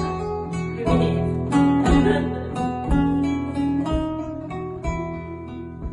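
Two guitars, one of them acoustic, playing the instrumental introduction of a folk song, with chords struck roughly once a second under changing notes.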